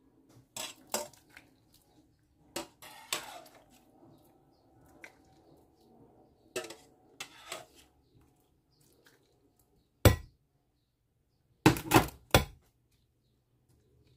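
Metal ladle clinking and knocking against a ceramic bowl: scattered light clinks, then a sharp clank about ten seconds in and three quick loud clanks a moment later.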